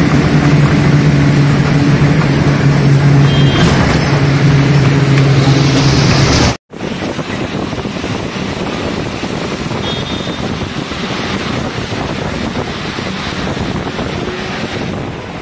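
Inside a moving bus in heavy rain: the bus engine drones steadily under a wash of rain and road noise. After a sudden cut a little over six seconds in, there is a quieter, even rush of tyres and rain on the wet highway.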